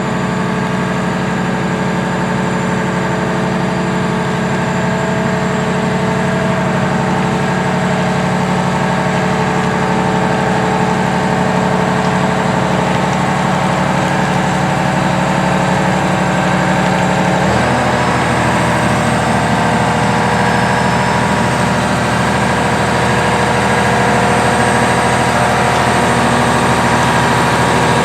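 John Deere 1270E harvester's diesel engine running steadily, with a sudden change in its engine note about two-thirds of the way through.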